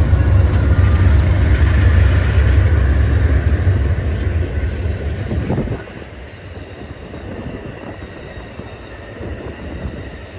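Amtrak GE P42 diesel locomotives rumbling loudly as they pass close by, followed about six seconds in by a sharp drop to the quieter rolling of Superliner bilevel passenger cars over the rails.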